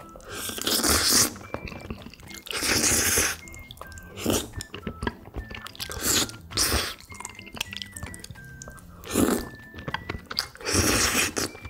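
Close-miked slurping of spicy noodles from chopsticks: about six loud, wet slurps, the longest about a second, with chewing between. Faint background music with light, high single notes plays underneath.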